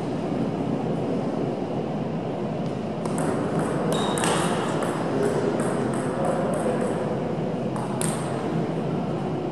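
Table tennis rally: the celluloid-type ball clicks sharply off the bats and table about three times a second, starting about three seconds in and stopping about eight seconds in.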